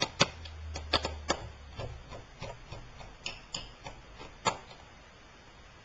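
Irregular sharp clicks and taps of a small screwdriver and hard plastic laptop parts being worked at the hinge, about a dozen, the loudest near the start and about four and a half seconds in.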